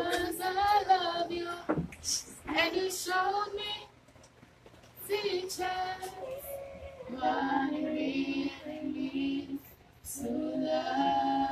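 Children's voices singing a song in sustained phrases, with short breaths between lines.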